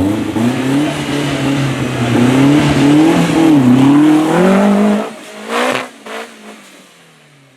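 Modified off-road competition truck engine revving hard, its pitch rising and falling under load for about five seconds, then dropping off suddenly, followed by two short loud bursts and a fade.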